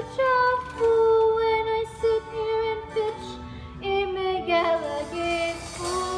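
Musical-theatre song: a high voice singing long held notes over the accompaniment, the pitch sliding down about two thirds of the way through.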